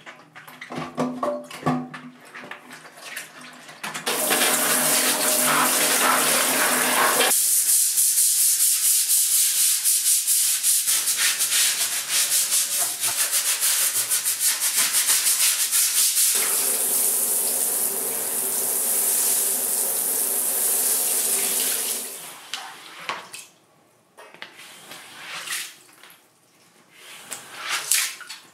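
Handheld shower head spraying water onto a tiled bathroom floor and drain: a loud, steady hiss that starts about four seconds in and stops a few seconds before the end. Before and after the spray there is irregular rubbing and brush scrubbing.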